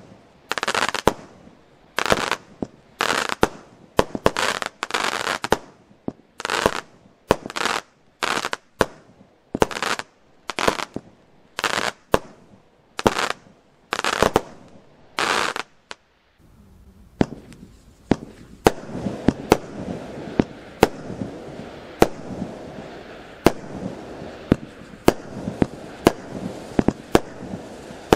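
Consumer firework battery (cake) firing shot after shot, each a sharp bang with a short rushing burst, about one and a half shots a second. After a brief gap just past halfway, another volley takes over: sharp reports about every second over a steady crackle.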